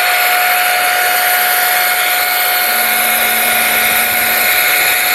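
Pro Hot hot-air brush styler running steadily: the fan motor blowing air with a constant whine.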